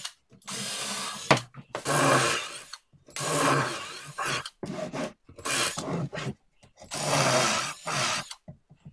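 Cordless drill boring pilot holes through hardwood in a string of short bursts, about nine, each under a second and starting and stopping abruptly, with one sharp click a little over a second in.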